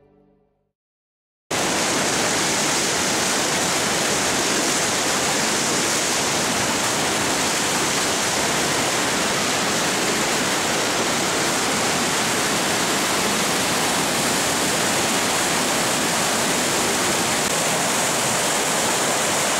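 Steady rushing of whitewater rapids, starting suddenly after a second or two of silence and running loud and even, with no breaks.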